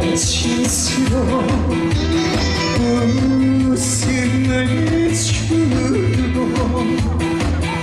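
Live trot music from a band over a loudspeaker system, with a steady beat, held instrument notes and cymbal swishes.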